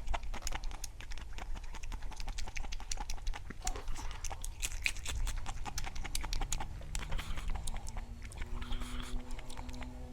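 Close-up chewing of papaya salad with noodles: a quick, irregular run of wet mouth clicks and crunches.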